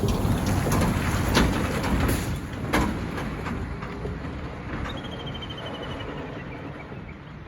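A passing vehicle's rumble fading away into the distance, with a few sharp knocks in its first three seconds. A short, rapid bird trill sounds about five seconds in.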